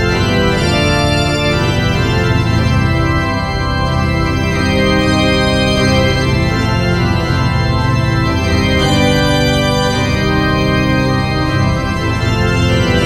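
Background music of slow, sustained chords that change every second or so.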